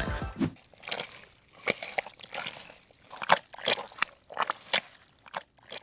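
A fork mashing and crumbling firm tofu in a ceramic dish, close up: a quick, irregular series of soft, wet, squishy strokes.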